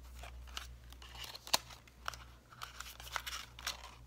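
Paper and card pieces being handled and shuffled: irregular rustling with short crisp snaps, the sharpest about a second and a half in.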